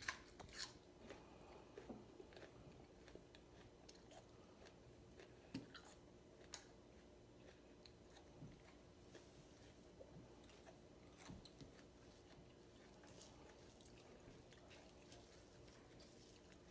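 Faint eating sounds: a person chewing, with scattered small clicks and mouth smacks, over a faint steady hum.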